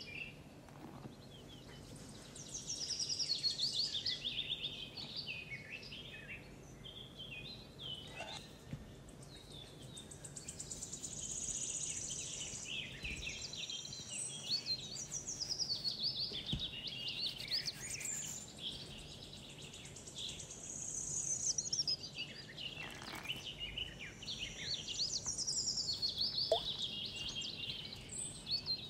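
Songbirds chirping and trilling in runs of quick high notes, phrases of a few seconds with short pauses between, over a faint steady background hum.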